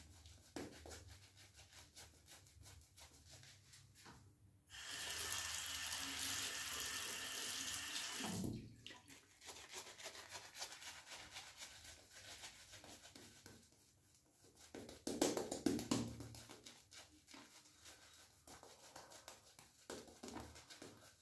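Badger-hair shaving brush building lather on a face with quick, quiet rubbing strokes. A few seconds in, a tap runs steadily for about four seconds, and a shorter burst of water noise comes about two-thirds of the way through.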